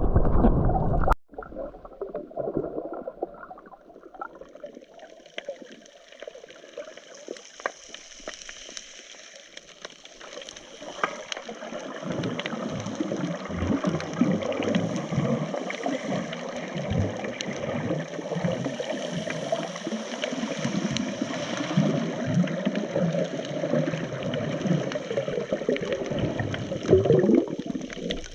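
Water sloshing and gurgling close to the microphone, with many small scattered clicks; it grows louder about halfway through.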